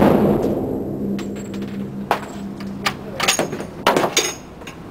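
The echoing tail of a gunshot fading over the first second, then several sharp clicks and knocks between about two and four seconds in.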